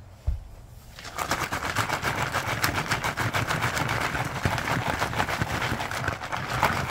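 Sealed Lortone rubber rock-tumbler barrel loaded with agates and polish, shaken by hand: a fast, continuous rattle of stones knocking together inside. It starts about a second in, after a single knock.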